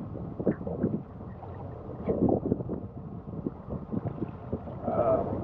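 Wind buffeting the microphone on a fishing boat, with irregular knocks and handling noise.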